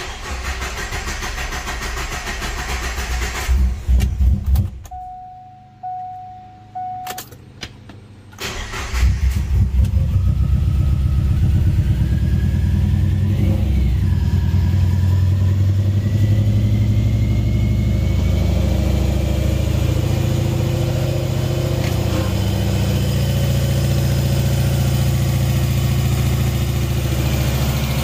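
Turbocharged Subaru EJ20 flat-four engine being started: the starter cranks for about five seconds, and three short beeps sound in a quieter pause. The engine fires about eight or nine seconds in and settles into a steady idle.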